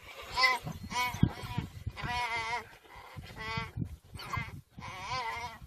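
An antelope bleating in distress while still alive under attack by African wild dogs: about six wavering, high bleats, the longest about two seconds in.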